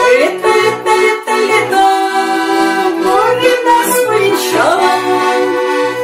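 Button accordion playing an instrumental passage: melody and chords in the right hand over steadily repeating bass notes.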